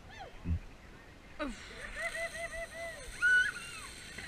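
High-pitched voices: two falling whoops in the first second and a half, then a quick run of short calls and a loud squeal about three seconds in.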